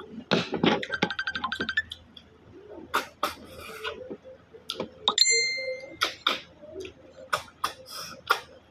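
Loud sucking and slurping as cooked bisikol snails are sucked out of their shells, with wet mouth clicks and smacks. About a second in comes a brief, fast, high pulsing chatter, and about five seconds in a short ringing clink.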